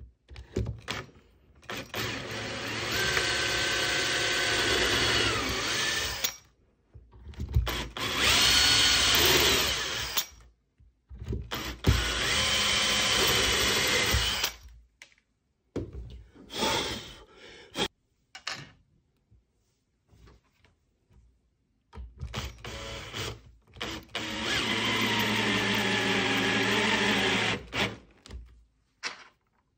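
Cordless drill running in several separate bursts of a few seconds each, boring holes into the top of a laminated chipboard cabinet panel. The motor's pitch wavers as the bit bites.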